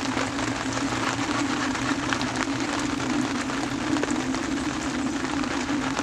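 Steady rain pattering, with a constant low rushing underneath.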